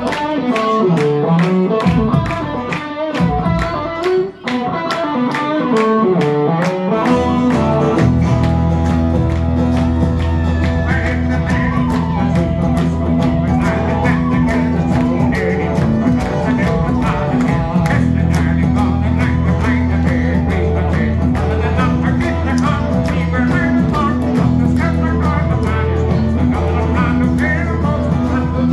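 Live Irish folk band playing a fast tune on fiddle, guitars, bass guitar and bodhrán, with a quick steady beat. The bass and the full band come in about seven seconds in.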